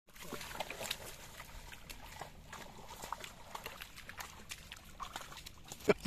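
Hooked fish thrashing and splashing at the water's surface, a run of scattered short splashes with one loud splash just before the end.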